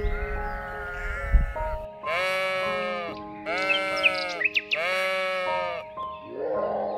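Sheep bleating four times, the first faint and the next three louder, each a wavering call under a second long, over background music.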